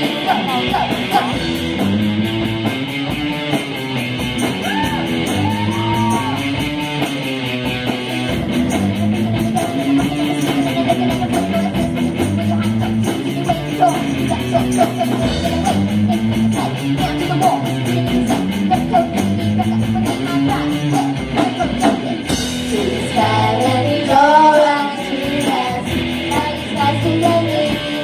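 A live rock band playing a song: electric guitars and drums, with a group of young girls singing the melody together.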